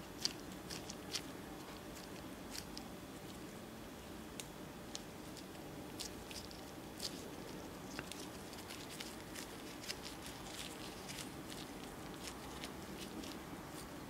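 A gloved hand pressing, kneading and tearing off pieces of soft nerikiri dough made from white bean paste, making small irregular sticky clicks and squishes.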